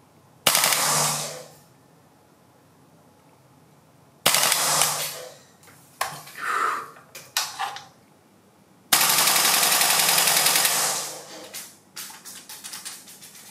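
VFC FN FNC gas blowback airsoft rifle firing in bursts, its bolt cycling with each shot. There are three bursts, about half a second, four seconds and nine seconds in, the last the longest at about two seconds, with a few separate sharp shots between and after them.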